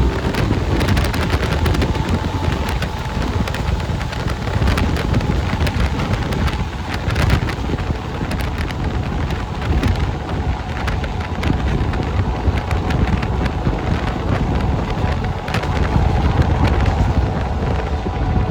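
Passenger train running along the line, recorded from on board: wind rushing over the microphone, with wheels clicking and clattering over the rails and a faint steady tone held through.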